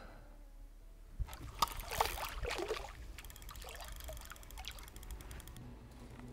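Water splashing and sloshing at the lake surface as a hooked carp swirls at the end of the line. There are a few sharp splashes between one and two seconds in, then fainter lapping.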